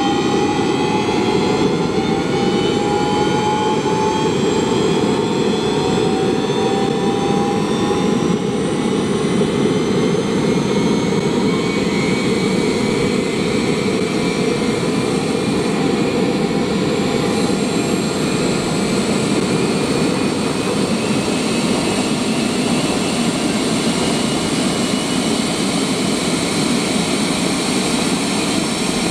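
Homemade turbojet engine running on propane and spooling up: a steady roar under a high whine that rises in pitch over the first several seconds as throttle is added, then holds steady as it settles toward idle at about 32,000 rpm.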